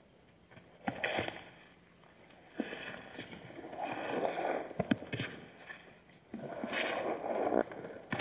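Animals at a waterhole making several breathy rushes, each about a second long, with sharp clicks in between.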